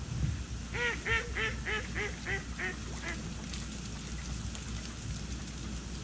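A duck quacking: a run of about eight quacks in quick succession over some two and a half seconds, each fainter and shorter than the last, over a steady low rumble.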